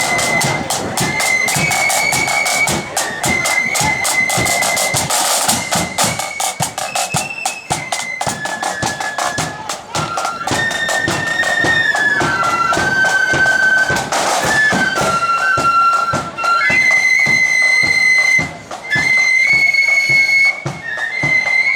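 Marching flute band playing a high, shrill melody on flutes over steady, heavy snare and bass drum beats.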